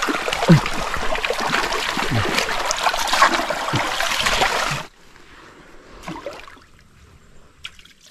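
River water rushing and splashing close to the microphone. About five seconds in it cuts off abruptly, leaving a much quieter trickle with faint ticks.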